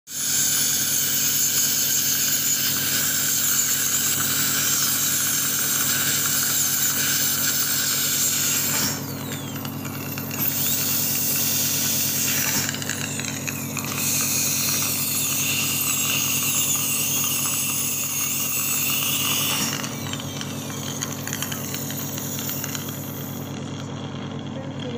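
High-speed dental handpiece (dental drill) whining as it cuts through a full-arch porcelain-fused-to-metal bridge to section it off. Its pitch wavers under load, with short breaks about nine and thirteen seconds in, over a steady low hum.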